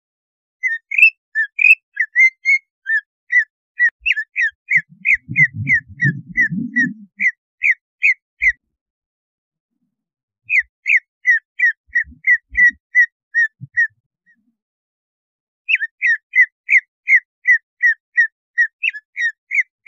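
Greater green leafbird (cucak ijo) singing long runs of short, sharp whistled notes, about three a second, in three bursts broken by short pauses. It is a provoking song of the kind played to rouse other leafbirds into aggressive singing.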